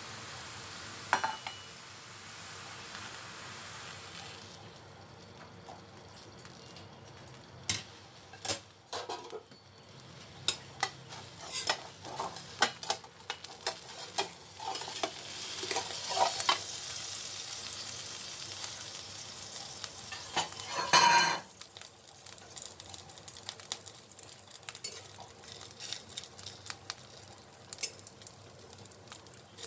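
Rice-coconut pancake batter sizzling in an oiled wok under a steel bowl, with scattered sharp metallic clinks and clatter of the steel bowl against the wok. The loudest is a clatter about two-thirds of the way through as the bowl is handled. Lighter sizzling crackle continues afterwards.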